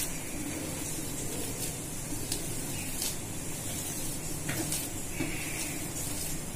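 Hands kneading a soft mash of elephant foot yam and gram flour on a steel plate, over a steady hiss.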